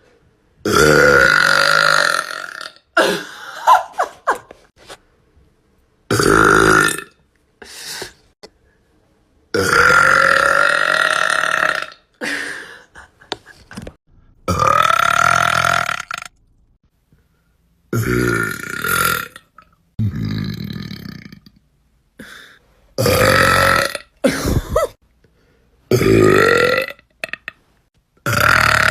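A woman burping loudly, about a dozen burps one after another. Most last one to two seconds, with short pauses between them.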